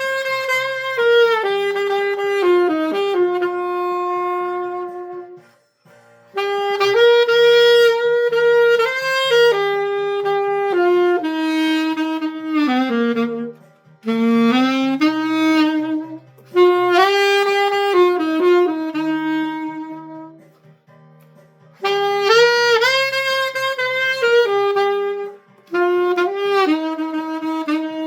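Selmer Mark VI alto saxophone with a metal mouthpiece playing a slow melody of long held notes, in phrases broken by short pauses for breath. The tone is dry, with no added effects.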